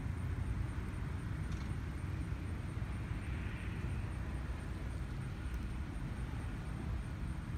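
Road traffic noise: a steady low rumble, with a faint hiss that swells and fades a few seconds in.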